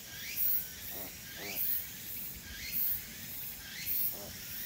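An insect chirring in a steady rhythm, about one call a second, each call rising in pitch with a high hiss on top.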